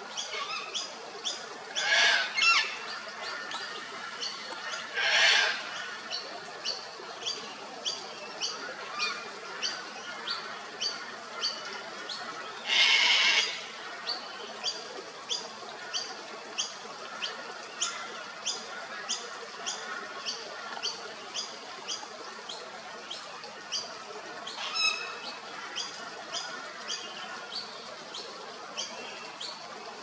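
Sulphur-crested cockatoo giving three loud, harsh screeches, each about a second long. Under them, another bird repeats a short high chirp about twice a second.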